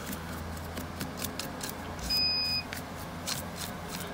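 A single short electronic beep, steady in pitch and about half a second long, a little after two seconds in, among light scattered clicks and taps of small tools.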